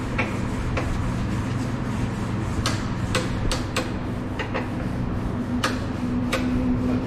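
Sharp metallic clicks, a dozen or so at uneven intervals, from a hand wrench being worked on the chassis brace bolts, over a steady low workshop hum.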